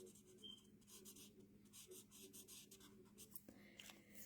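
Faint, short scratching strokes of a colouring tool on cardstock, coming irregularly every fraction of a second.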